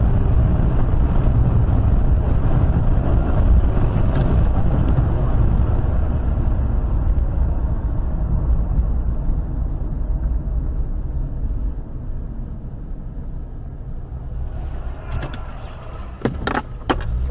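Steady engine and road noise of a moving car, easing slightly after about twelve seconds, with a few sharp clicks near the end.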